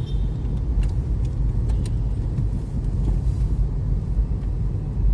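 Steady low rumble of a car driving at low speed in city traffic, heard from inside the cabin, with a few brief faint clicks about a second and two seconds in.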